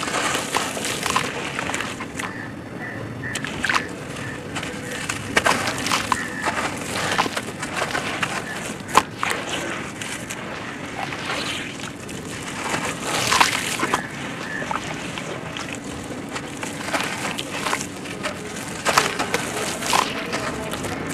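Wet sand and dirt chunks being squeezed, crumbled and swished by hand in a plastic tub of muddy water: sloshing and splashing mixed with irregular gritty crackles, the sharpest about nine seconds in.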